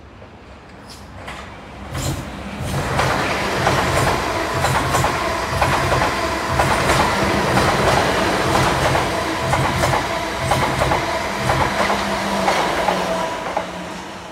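A long multi-coach passenger train approaching and passing close by, building up about two seconds in and fading near the end. Its wheels clatter and click over the rail joints, with a steady whine over the running noise.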